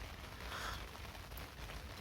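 Steady rain falling, a fine patter of drops, with one brief soft sound about half a second in.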